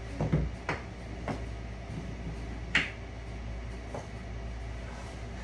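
A few light, sharp knocks and clicks of small wooden pieces being handled and set down on boards, the loudest about three seconds in.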